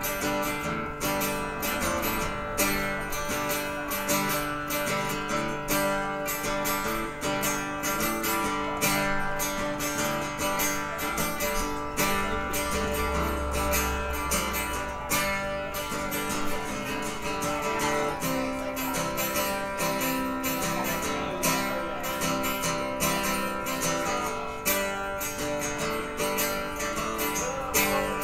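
Live music: a strummed guitar plays on steadily without singing between sung lines of the song. A deeper low tone swells for a few seconds about halfway through.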